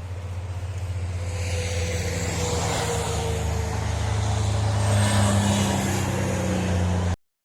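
Interstate traffic passing: a heavy vehicle's engine and tyre noise that grows louder, peaks near the end, then cuts off suddenly.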